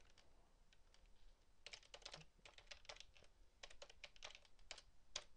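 Faint keystrokes on a computer keyboard, typed in short quick runs with brief pauses between, starting a little under two seconds in.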